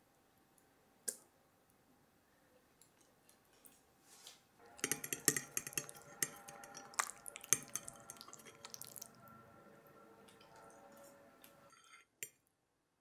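A metal fork clinking and scraping on a ceramic plate while twirling spaghetti and scraping up the last of the sauce. A single clink comes about a second in, then a busy run of clinks and scrapes starts about five seconds in and cuts off shortly before the end.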